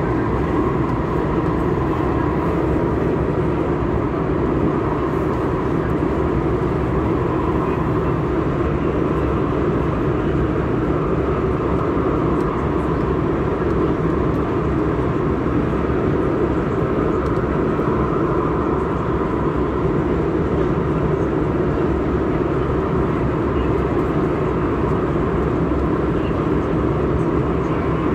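Inside a moving MTR Tuen Ma line C-Train electric train: steady running noise of wheels on rail and car body, a dense rumble with a faint steady high whine over it, holding an even speed.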